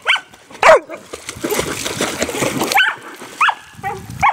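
A dog barking: two loud, sharp barks in the first second, then three shorter barks in the second half.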